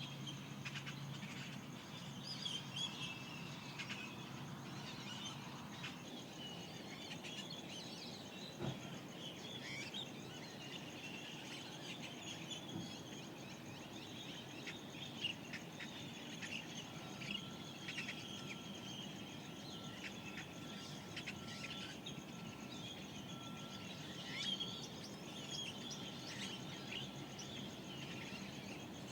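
Mojave Desert dawn chorus: many birds chirping and trilling all through, over a steady high-pitched hiss. A thin steady tone joins in about halfway and stops near the end.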